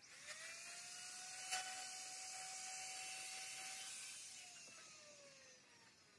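An electric power tool's motor spins up, runs unloaded at a steady pitch, then is switched off and coasts down with a slowly falling whine. A sharp click about a second and a half in.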